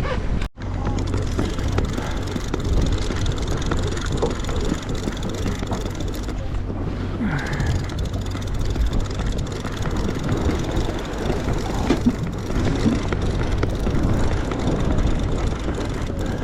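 Fishing boat's engine running with a steady low hum, under a constant wash of wind and sea noise.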